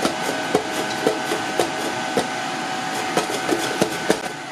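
Zucchini slid back and forth over the 6 mm slicing blade of a Nicer Dicer Exclusive, a knock at each stroke, about two or three a second, not quite evenly spaced.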